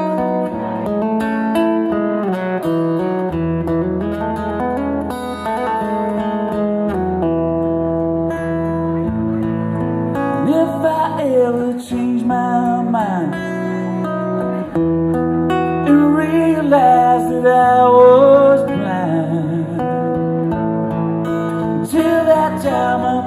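Two acoustic guitars, one nylon-string and one steel-string, playing a song live, with steady chords underneath. From about ten seconds in, a melody line slides and wavers in pitch above them.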